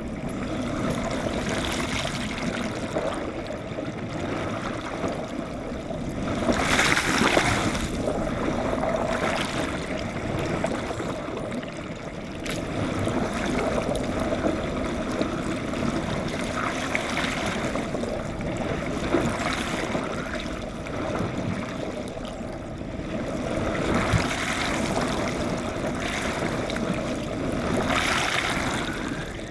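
Water rushing and churning past a GoPro held underwater from a moving sailing yacht, heard muffled through the camera's waterproof housing. It is a steady rushing hiss that surges louder a few times, most strongly about 7 seconds in and again near the end.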